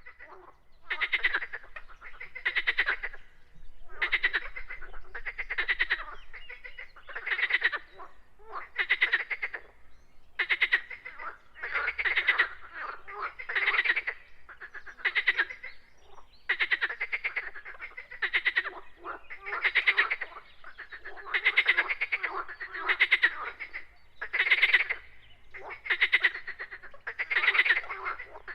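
Frogs croaking: a steady run of short pulsed calls, each lasting under a second and following one another about every second or so.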